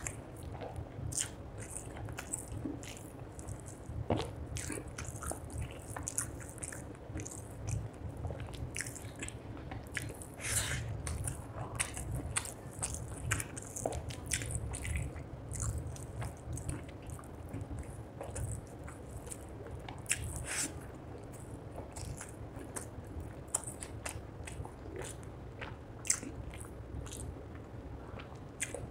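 Close-miked eating of rice and fish curry by hand: continual chewing and lip smacking, with many short wet clicks of the mouth.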